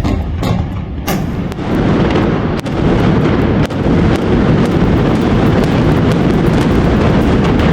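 Building implosion: a few sharp demolition-charge cracks in the first second, then from about a second and a half in a continuous loud, low rumble of the structure collapsing.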